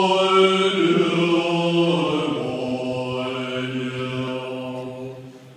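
Tibetan Buddhist monks chanting in deep voices in long held notes. The pitch steps down about two seconds in, and the phrase fades out near the end.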